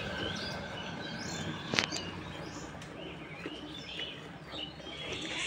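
Small birds chirping around a cow being milked by hand, over a faint swish of milk streams squirting into a steel bucket. One sharp click comes about two seconds in.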